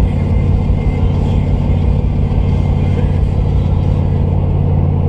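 Steady engine drone and road noise inside the cab of a 2010 Ram 1500 pickup cruising at highway speed, with a strong low hum.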